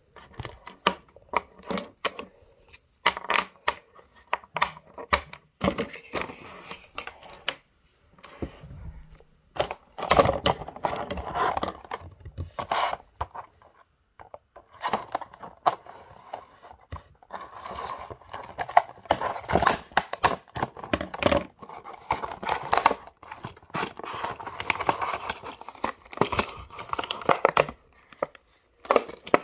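Clear plastic toy packaging crinkling and tearing in irregular stretches while a wooden toy train set is unpacked by hand, with scattered clicks and knocks from the box and pieces being handled.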